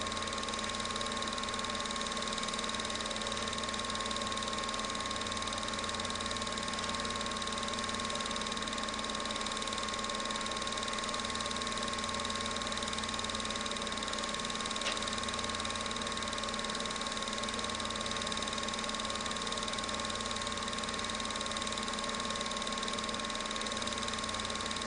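Home-movie film projector running: a steady motor and fan whir with a constant hum and a fixed high whine, broken only by one faint tick about fifteen seconds in.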